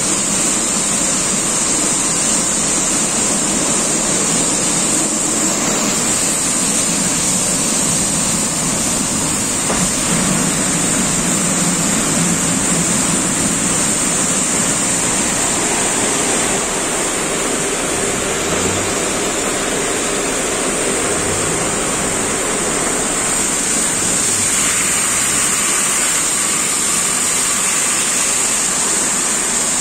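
Automatic rollover car wash gantry running, its water jets spraying over the car and its rotating brushes turning. It makes a steady rushing hiss of water.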